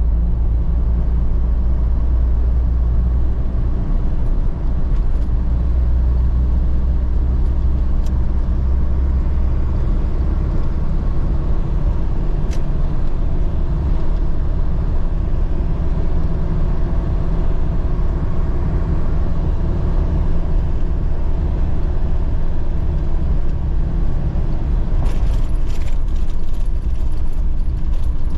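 A steady, loud low rumble of a vehicle's engine and road noise heard while driving. A few brief clicks or rattles come near the end.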